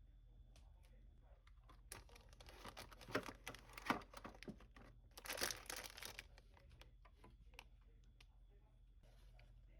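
Crinkling and rustling with scattered light clicks, as of a wrapper or bag being handled, in two busier stretches about two and five seconds in, over a faint low hum.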